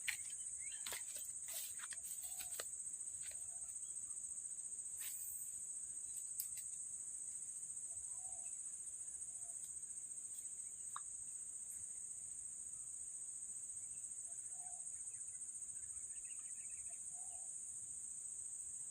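Steady high-pitched insect chorus, crickets or similar. A few soft clicks come in the first few seconds, and faint short calls sound now and then.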